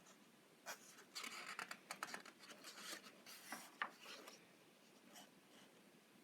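Faint paper rustling as the glossy pages of a soft-cover colouring book are handled and turned, a quick series of crisp rustles and scrapes that dies away after about four seconds.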